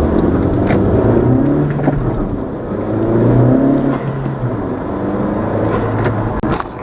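Turbocharged 1.5-litre four-cylinder (L15B7) engine of a Honda Civic breathing through an aftermarket cold air intake, pulling under throttle with its pitch rising and falling a few times, loudest about halfway through.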